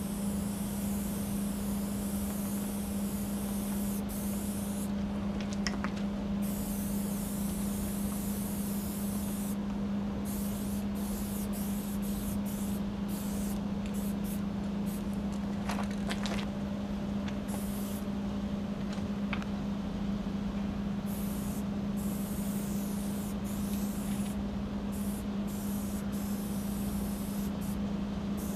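Aerosol spray paint can hissing in long bursts with brief pauses, over a steady low hum.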